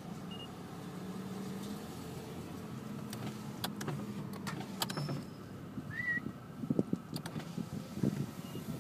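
Car running at low speed, heard from inside the cabin: a steady low hum, with a few sharp clicks in the middle and more uneven rumbling toward the end.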